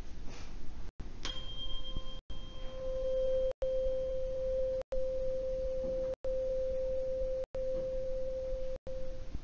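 A 523.2 Hz tuning fork is struck about a second in and held over a resonance tube, giving one pure steady tone with a brief high ring at the strike. The tone swells much louder as the water column is brought to the first resonance point, then fades near the end.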